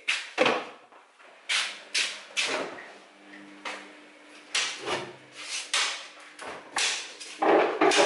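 Kitchen clatter: a bowl set down in a stainless-steel sink just under half a second in, then a string of knocks and bumps as the fridge door and drawers are opened and handled, with a louder, longer clatter near the end.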